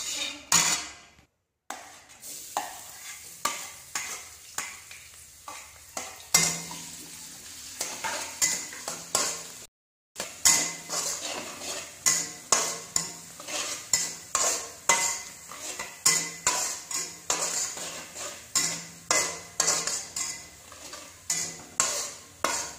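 Metal spatula scraping and clinking against an aluminium wok in repeated strokes while stirring minced garlic and chilli frying in oil, with a sizzle underneath. The sound cuts out briefly twice.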